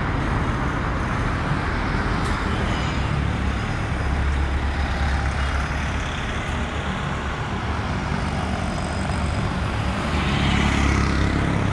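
City road traffic: motor vehicle engines running steadily as vehicles drive past, swelling about four seconds in and again near the end, when a motorcycle goes by close.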